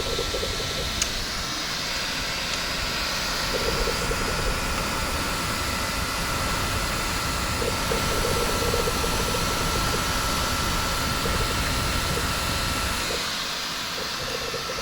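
A 3D printer running mid-print: steady fan noise with a thin high whine, and short buzzing motor moves now and then as the print head travels.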